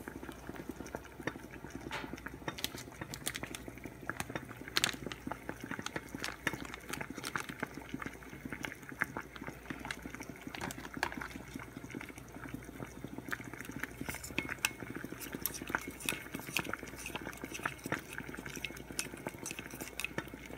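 Water boiling hard in a saucepan, with a glass measuring cup standing in it clicking and rattling against the pot in many small, irregular taps while a plastic spoon stirs the melted wax mixture inside the cup.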